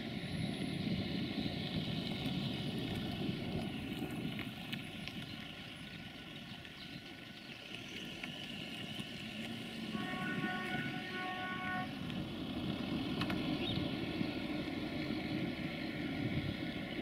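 Distant M44 Bobo diesel locomotive running with a steady low rumble as it approaches. About ten seconds in, its horn gives a few short toots over roughly two seconds.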